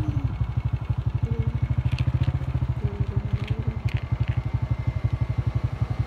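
Vehicle engine running steadily at low revs with a rapid, even putter.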